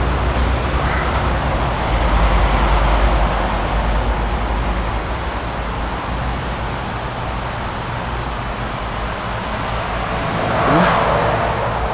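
Steady outdoor road-traffic noise with a deep rumble, swelling as a vehicle goes past about eleven seconds in.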